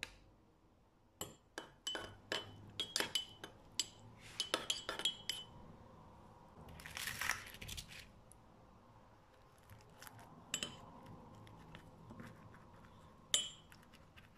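A spoon clinking and scraping against a pot while sour cream and chopped garlic are stirred together: a run of quick, ringing taps in the first few seconds, a longer scrape about seven seconds in, and one sharp clink near the end.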